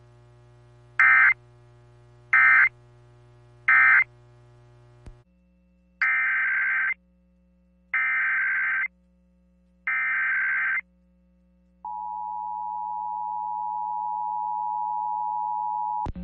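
Emergency Alert System tones from a radio stream. First come three short, loud SAME data bursts, the end-of-message code that closes an alert. Then come three roughly one-second SAME header bursts that open the next alert, and about 12 seconds in the steady EAS two-tone attention signal starts.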